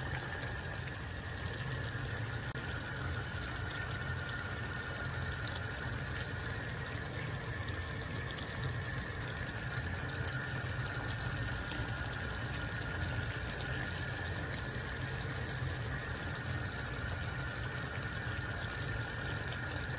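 Pinakbet simmering in a pan of shrimp-paste sauce: a steady watery hiss and sputter, with a faint steady high hum underneath.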